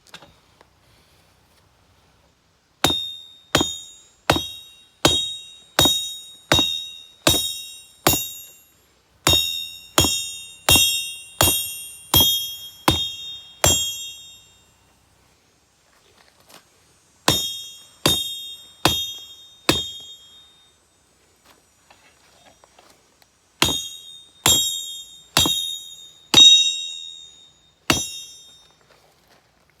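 Hand hammer striking hot steel on an anvil as a sword's tang is forged, each blow ringing. The blows come at about one and a half a second, in three runs with short pauses between.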